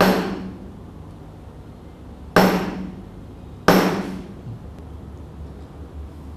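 Three hammer blows struck through a timber stick to drive an armoured padlock's body out of its steel cover. The first comes right away and the next two about two and a half and one and a half seconds apart. Each blow rings on briefly in the metal.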